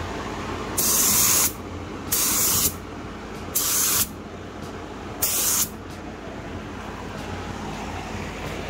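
Compressed-air spray gun laying down a first coat of epoxy clear on a hard hat: four short bursts of spray hiss, each about half a second, with pauses between, over steady booth fan noise.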